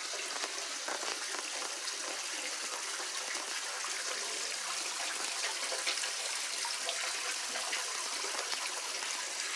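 Water pouring steadily in thin streams from a metal dragon spout into a stone temple purification basin (temizuya), splashing on the water's surface.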